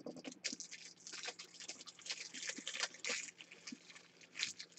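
Faint rustling and small crackles of trading cards and their packaging being handled, a quick patter of light crackles for about three seconds, then only a few.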